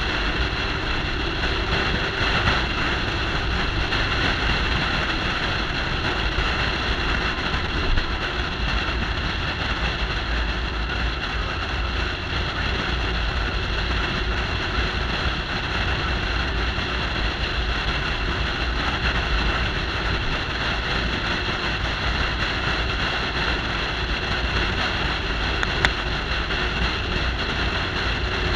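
Steady wind rush and road noise from a vehicle driving at highway speed, with low wind buffeting on the microphone.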